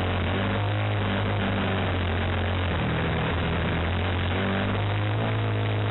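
Glow-plug model aircraft engine running steadily in flight, heard close up from on board along with its propeller. The engine note dips slightly about three seconds in and rises again near the end.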